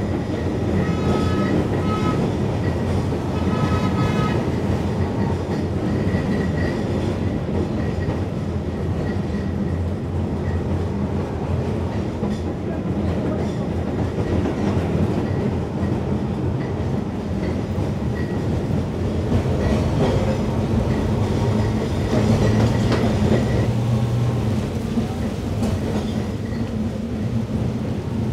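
Kolkata tram car running on its rails, a steady loud rumble and clatter of the wheels and car body heard from inside the car. Two short high-pitched tones sound in the first few seconds.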